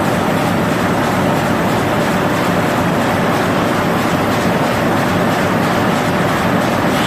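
High-speed four-colour printer slotter die cutter for corrugated boxes, running steadily: a loud, even mechanical running noise of the machine and its stacker conveyor.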